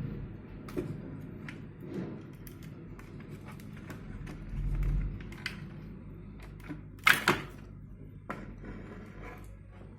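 Scattered small clicks and knocks of hands and tools working on the inside of a large speaker cabinet, with a low thud about five seconds in and one louder clatter about seven seconds in.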